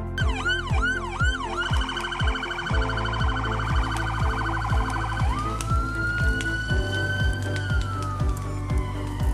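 An electronic siren sounding over background music with a steady beat. It begins with quick repeated sweeps, switches to a fast warble about a second and a half in, then changes to a slow rise and a long falling wail from about five seconds in.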